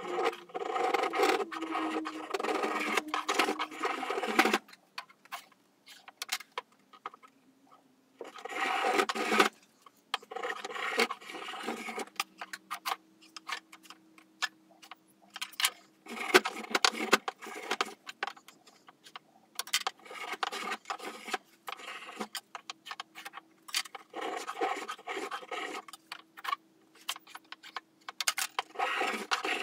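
Spokeshave shaving a bevel along the edge of a wooden canoe frame piece: runs of quick scraping strokes in several bursts, with pauses and small clicks and knocks between them.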